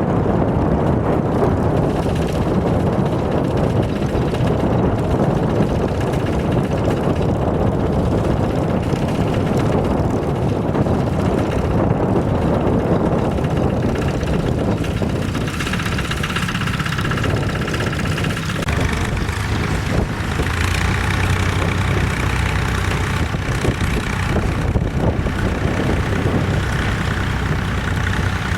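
Vintage tractor engine running steadily. The first half is rough and noisy; past the middle, a steadier engine note with a low hum comes through more clearly.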